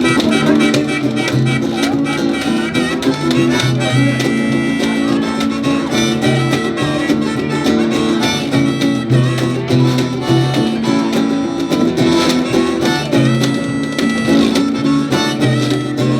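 Live string band playing an instrumental passage: guitar and harmonica over a plucked washtub bass, with the scrape of a washboard keeping the rhythm.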